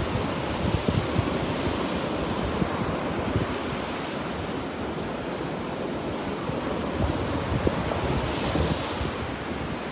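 Small Gulf of Mexico surf breaking and washing up a sand beach as a steady hiss, with wind buffeting the microphone in low, uneven rumbles. A brighter wash of surf swells up near the end.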